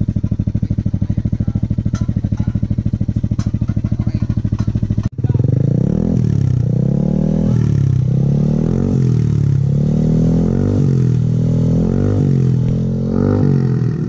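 Yamaha Aerox 155 scooter's single-cylinder four-stroke engine running through an IXIL full-system exhaust with the dB killer taken out. It idles steadily, then after a brief break about five seconds in it is revved in a string of quick throttle blips, the pitch rising and falling each time.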